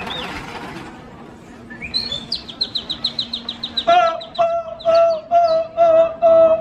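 Birds calling: a quick run of short, high, falling chirps, then a loud call repeated on one steady pitch, a few times a second, from about four seconds in.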